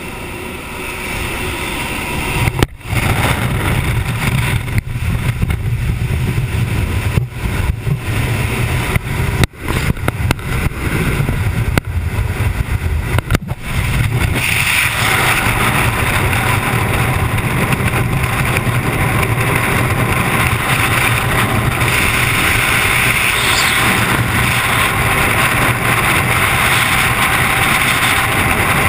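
A jump plane's engine and propeller wash at the open door, buffeting the microphone in uneven gusts with sudden dropouts. About halfway through the skydivers exit, and it turns into the steady loud rush of freefall wind on the microphone.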